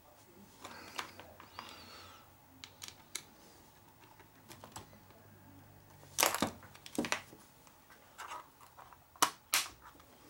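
Scattered clicks and light knocks of small tools and RC buggy steering parts being handled and fitted on a workbench, with a brief scrape early on and sharper clacks about six seconds in and again after nine seconds. A faint low hum sits underneath.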